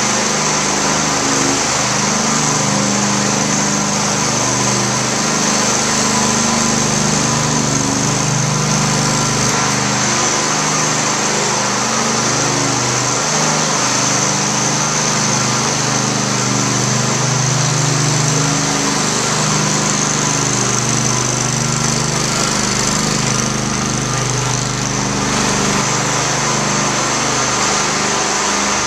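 High-speed floor burnisher running continuously as it is pushed over a polished hard floor during spray buffing: a steady machine hum with a high whine over it.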